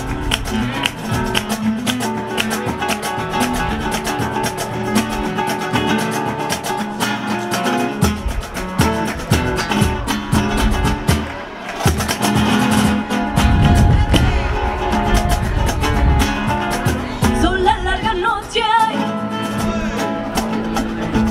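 Live flamenco music: Spanish guitars strumming and picking, with sharp hand claps (palmas). Near the end a woman's voice sings a wavering, ornamented line.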